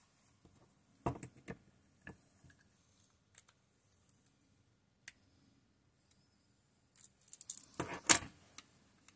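Hands fitting a watch into a plastic case holder and handling a metal case-back opener: scattered soft clicks and knocks, then a burst of metallic clinking and clatter about eight seconds in, the loudest part.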